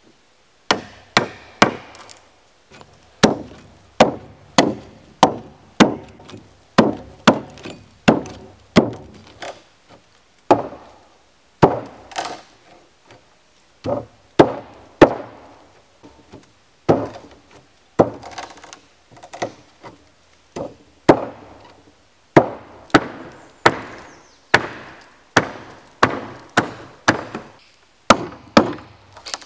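Steel hand tools striking timber: runs of sharp blows, two or three a second with short pauses, from a hatchet chopping at a log beam and a hammer driving a chisel into the wood.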